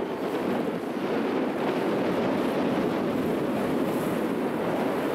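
Steady boat engine rumble and water noise, with wind buffeting the microphone.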